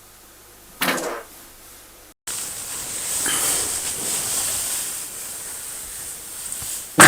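Two short bursts of breaking wind from a sleeping person, one about a second in and a louder one near the end, with a steady hiss between them.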